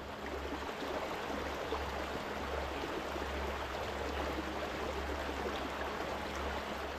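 A small rocky fell beck running steadily over stones, an even rush of flowing water.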